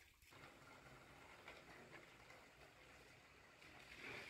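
Near silence: faint steady background hiss, a little louder near the end.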